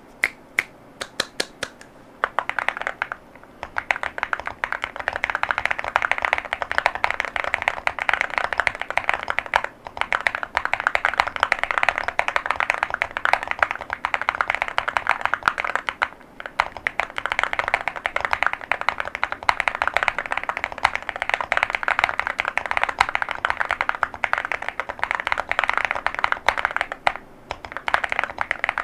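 Evoworks Evo80 mechanical keyboard with Keygeek Oat linear switches (36 gf) and Cerakey ceramic keycaps being typed on: a few single keystrokes, then fast continuous typing with a few short pauses.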